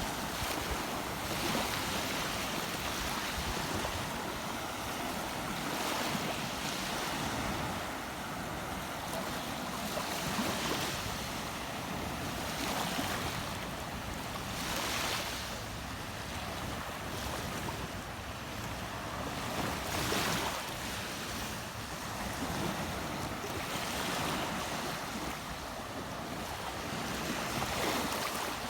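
Rushing water of a river running over rocks, a steady noise that swells and eases every few seconds.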